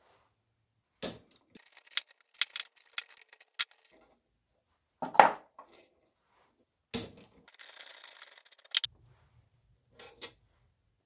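Metal hand tools clinking and clanking against the cast grinder housing and workbench as the long body bolts are worked loose with a hex key and wrench. The sounds come as scattered separate knocks, the loudest about five seconds in.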